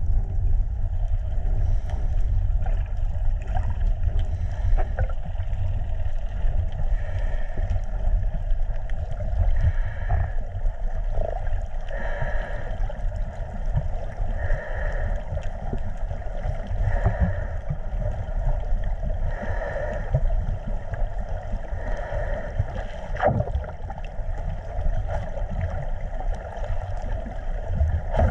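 Muffled underwater ambience: a steady low rumble with water noise, a soft sound repeating about every two and a half seconds, and a few faint clicks.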